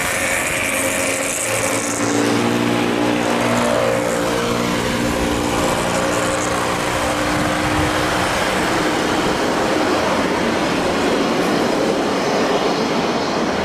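Jet engines of a Boeing 737 freighter running loudly through its landing roll-out just after touchdown. A cluster of whining tones sinks slowly in pitch over the first several seconds, over a steady rushing noise.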